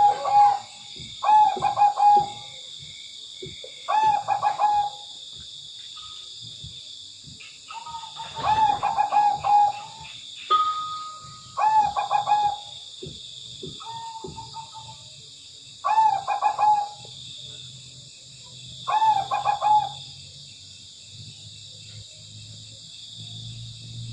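Zebra dove (perkutut) cooing: about eight short rolling coo phrases, repeated every two to three seconds.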